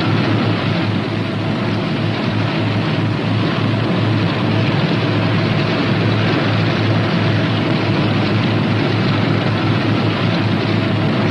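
Northrop P-61 Black Widow's twin radial engines running steadily at taxiing power: a constant drone with a low pulsing throb under a heavy hiss.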